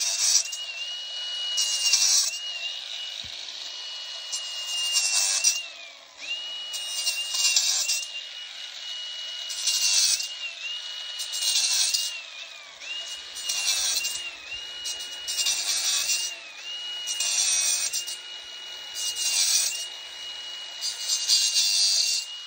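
A small cordless power tool cutting through wire fencing: a steady high motor whine that sags in pitch each time it bites, with a harsh rasping cut about every two seconds.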